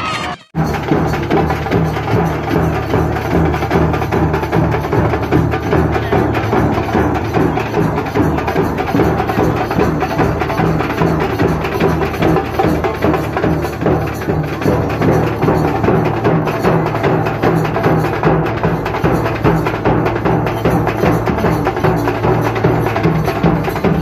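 Live festival drumming: a large drum beaten with sticks, with other percussion, playing a dense, fast, unbroken beat. It cuts in about half a second in, after a moment of a recorded song.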